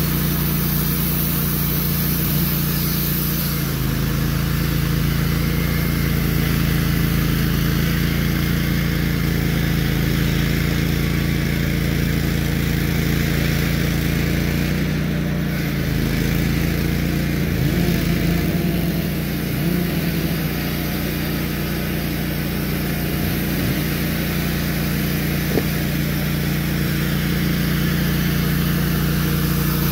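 Woodmizer LT15GO portable sawmill's gas engine running steadily under load while its band blade cuts through a log. The engine note drops a little about four seconds in.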